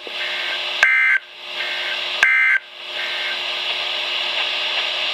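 Two short bursts of Emergency Alert System digital data tones, a warbling two-pitch squeal about a second and a half apart, the end-of-message code of a NOAA Weather Radio alert; after them, steady radio hiss.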